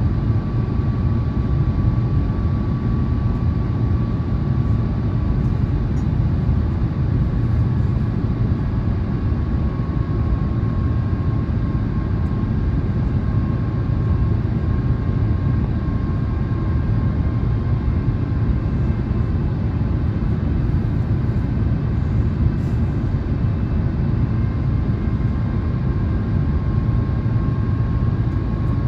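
Airbus A350-1000 cabin noise on approach: a steady low rumble of airflow and engines from a window seat, with a thin high engine whine from the Rolls-Royce Trent XWB-97 engines that drifts slightly in pitch.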